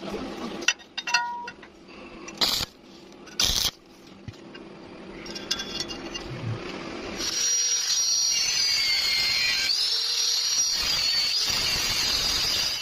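Scattered metallic clicks and knocks, then from about seven seconds in a power tool runs on metal with a steady high hiss and a whine that dips and rises in pitch as it works.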